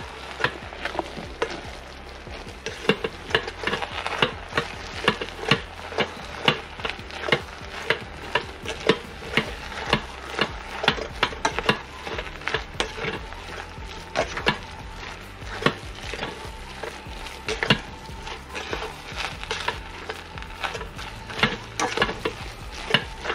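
A plastic rice paddle stirring and scraping through a pot of cooked rice, tomatoes and meat in an electric rice cooker, knocking against the pot in repeated strokes about one or two a second.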